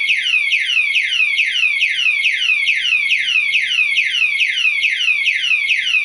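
Security alarm padlock's built-in siren sounding after the armed lock is moved or tapped: a loud, rapid run of falling electronic whoops, about four a second, over a thin steady high tone.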